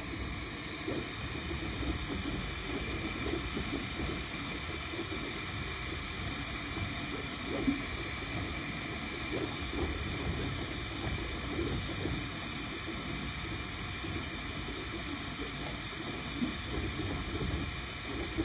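3D printer running: a steady mechanical whirr with several faint constant high tones over a low rumble.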